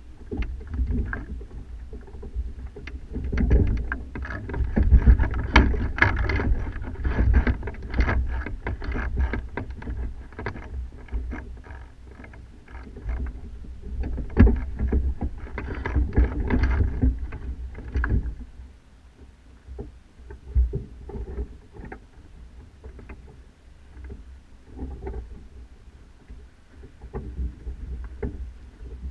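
Wind rumbling over a mast-top action camera, with irregular flapping and rattling from the loosely set sail and mast fittings. It is busiest for the first eighteen seconds or so, then quieter.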